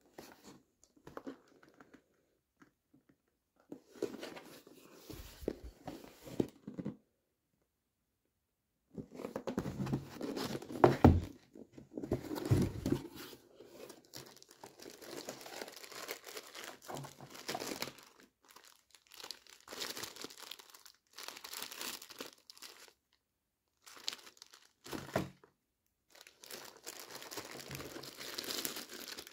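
Unboxing a tool: a cardboard box being handled and opened, and plastic bags and wrapping crinkling, in stop-start bursts with short silent gaps. A few knocks against the box, the loudest about eleven seconds in.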